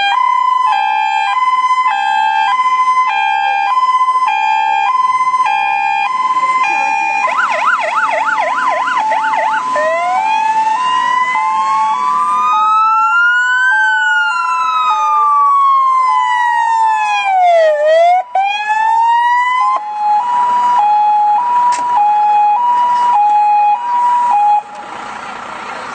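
Fire engine's electronic siren sounding as the truck drives up. It runs a high-low two-tone, switches about seven seconds in to a fast yelp, then to a slow rising and falling wail, then back to the two-tone, which cuts off near the end.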